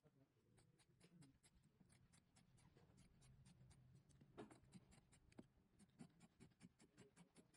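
Near silence with faint, quick clicks, several a second, over a low hum.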